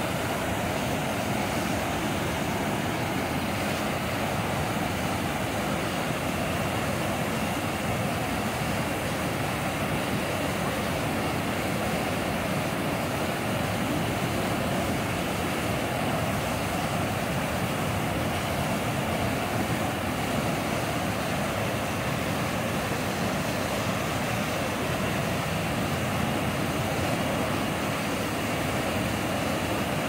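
Mountain waterfall pouring down a granite chute into a rocky pool: a steady, unbroken rush of falling water.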